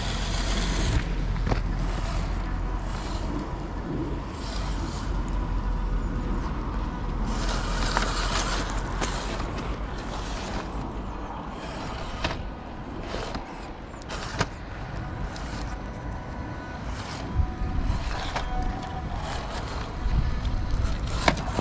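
A 1/12-scale RC crawler's 370 electric motor and reduction gearbox whining steadily as the truck climbs over loose gravel and rock. Scattered clicks and crunches of the tyres and chassis on stones, most of them in the second half, over a steady low rumble.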